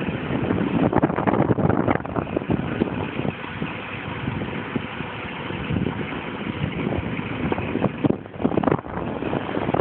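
Renault 370 truck's diesel engine running steadily while its tipper trailer is raised to tip the load, with irregular crackling over it.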